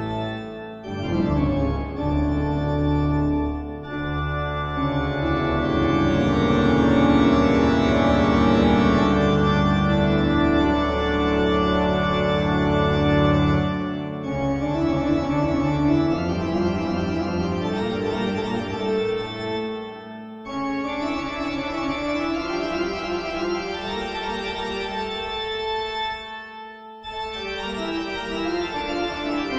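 Eerie horror-style background music on organ, with held chords and a low drone that break off briefly three times before the next phrase starts.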